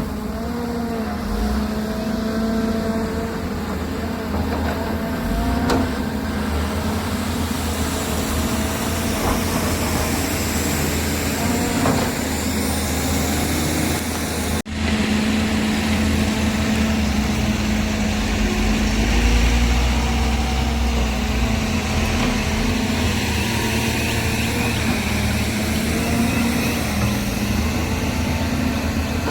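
Heavy diesel earthmoving machinery running steadily, the engines of a Volvo excavator and the dump trucks it loads, with a steady hum and a brief dropout about halfway through.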